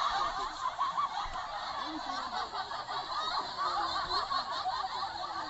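A laughter sound-effect clip playing back, with a thin, tinny sound and no low end. It starts and stops abruptly.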